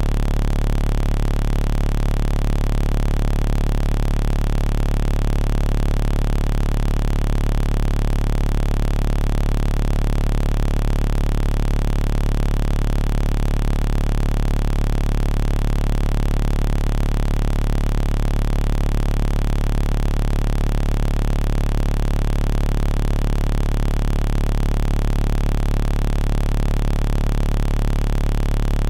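A loud, steady electrical buzz that never changes: mains hum at 50 Hz with its overtones, under a constant hiss.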